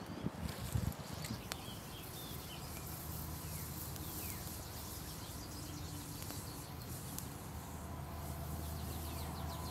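Breath blown in puffs onto a smouldering tinder bundle during the first second, then a small twig fire catching with a few faint crackles. Birds chirp in the background.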